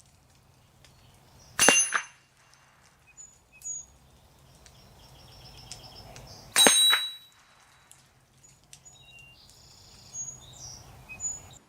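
Two shots from a Mossberg 715T semi-automatic .22 LR rifle, about five seconds apart, each a sharp crack with a brief high metallic ring. Birds chirp faintly between the shots.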